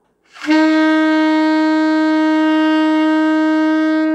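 Alto saxophone holding one long, steady note, the left-hand fingering for C (do), blown at an even strength. It starts about half a second in and lasts about four seconds.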